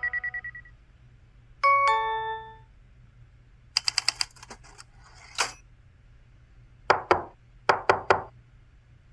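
LG SU550 phone's built-in system sound effects played one after another: a quick run of beeps, a two-note chime stepping down in pitch, a fast rattle of clicks, then five short sharp clicks.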